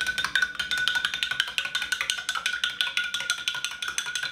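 A metal teaspoon stirring briskly in a tall drinking glass: rapid clinks against the glass, which rings with a steady tone.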